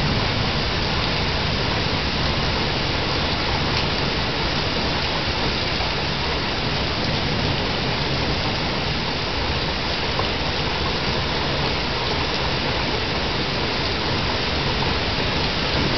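Steady rain falling during a thunderstorm, heard through a porch security camera's microphone.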